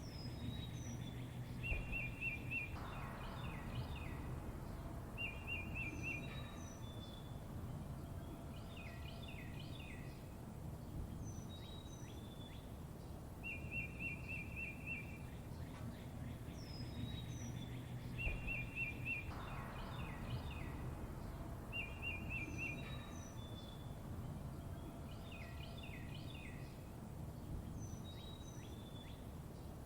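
Songbirds chirping: short buzzy trills and quick high chirps at intervals, in a sequence that repeats about every 16 seconds, over a steady low outdoor rumble.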